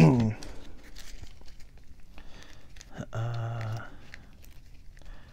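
Trading cards being handled and laid out: soft rustling and small clicks. A man's short voiced sound at the very start and a held low 'uhh' about three seconds in.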